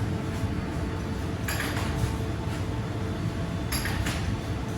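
Factory machinery running with a steady hum, with two brief metallic clinks or clatters about two seconds apart.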